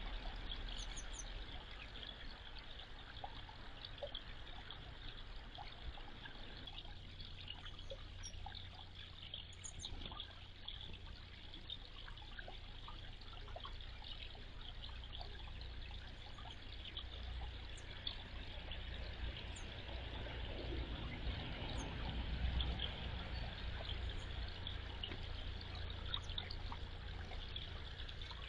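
Water trickling steadily into a small garden pond, over a low steady hum. Faint, brief high bird chirps come through now and then.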